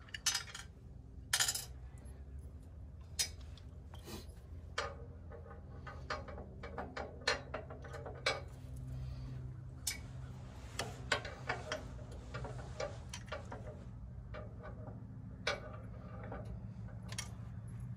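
Irregular metallic clinks and clicks of mounting bolts and hand tools against the steel winch and its bracket while the winch is being bolted on by hand.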